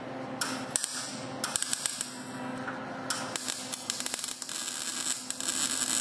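Electric arc welder crackling and sizzling in short bursts while welding in a support bracket, over a steady electrical hum. The first bursts come about half a second in, and a longer run of welding starts about three seconds in.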